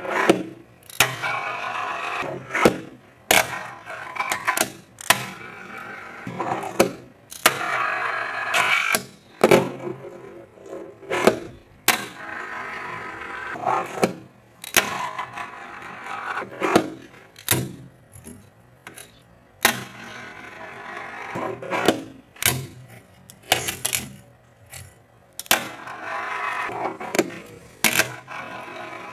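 Fingerboard on a wooden desk: the wheels roll, the tail pops and the board clacks down on landings, again and again through a run of flip tricks.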